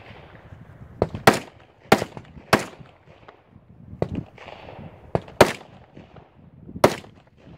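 Rifle shots fired at a steady pace. Three loud shots come about half a second apart just after a second in, then two more, with fainter single cracks between them.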